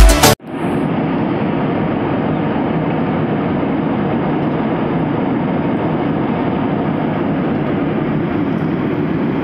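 Steady, even rushing noise inside a moving passenger vehicle, with no rhythm and no distinct tones, starting abruptly about half a second in.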